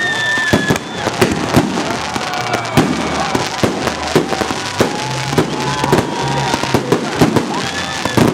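Fireworks display: a rapid, irregular volley of bangs and cracks, several a second, with pitched whistling tones over them.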